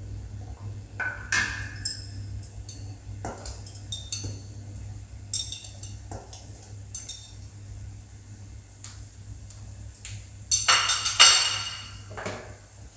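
Metal utensil clinking and scraping against pots and pans, scattered single clinks that ring briefly, then a louder quick run of clattering and scraping near the end. A steady low hum runs underneath.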